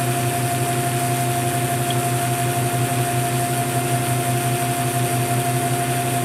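Metal lathe running at a steady speed: a steady whine over a motor hum.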